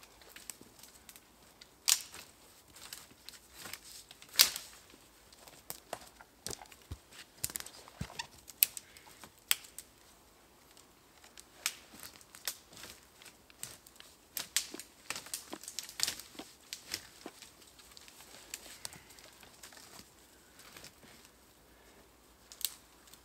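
Irregular crackling, snapping and rustling of sticks and dry leaf litter being handled, with a few louder sharp cracks about two seconds in and near the middle.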